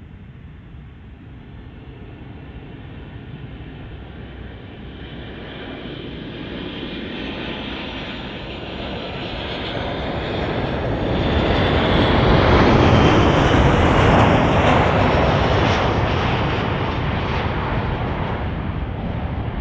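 Air Europa Boeing 737 jet on final approach to land, its engines running. The rumble grows steadily louder as the plane nears, peaks about two-thirds of the way through as it passes close, and then eases a little. A faint high whine slides down in pitch as it goes by.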